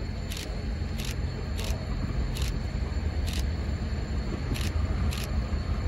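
Sharp camera-shutter clicks repeating irregularly, roughly one a second, over a steady low rumble.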